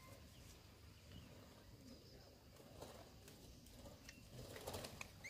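Near silence: low outdoor background with a few faint clicks and small knocks, a little busier near the end.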